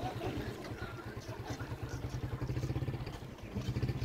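Street traffic noise, with a motor vehicle engine running nearby in a steady low pulse.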